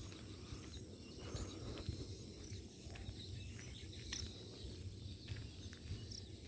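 Rural outdoor ambience while walking on a paved road: a steady low rumble of wind on the microphone, faint footsteps, and scattered faint bird chirps.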